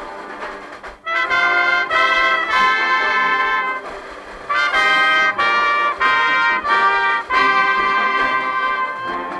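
Marching band brass playing, led by a trumpet right at the microphone that comes in loud about a second in with held notes in short phrases, and briefly drops out around four seconds in.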